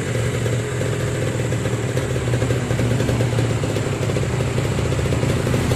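Kawasaki Ninja 150 SS's two-stroke single-cylinder engine idling steadily and running really smooth after a full rebuild from flood damage.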